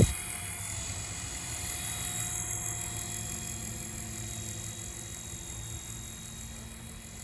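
DEERC DE51 mini RC helicopter's small electric motors and rotor whining steadily in flight, slowly getting quieter, over wind rumble on the microphone. A sharp click right at the start.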